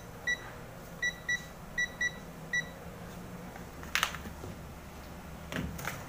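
A handheld digital multimeter beeps as its buttons are pressed to switch it to capacitance mode: about seven short, same-pitched beeps over the first two and a half seconds. Then comes a single click about four seconds in and a few soft knocks near the end.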